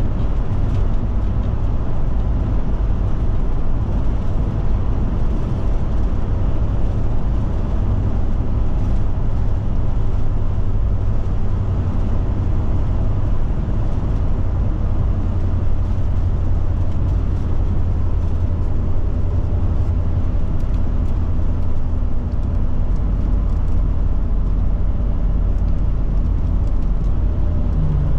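Steady road and drivetrain noise of a Forest River Forester motorhome cruising at highway speed: a continuous low rumble with no change in pace.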